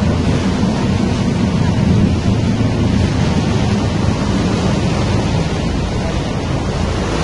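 Steady rushing noise of a boat under way: the wake churning behind the stern and wind buffeting the microphone, with a deep low rumble.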